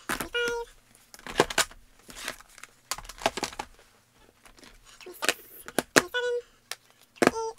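Eyeshadow palettes being picked up, shuffled and set down on a tabletop: a string of sharp clacks and taps of hard plastic and cardboard cases. A few brief high squeaks come through near the start and about six and seven seconds in.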